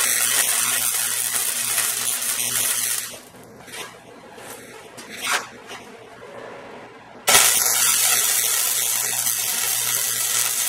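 MIG welding arc sizzling as beads are laid on half-inch rebar and a steel skid shoe. The first weld stops about 3 seconds in, and a second one starts just after 7 seconds.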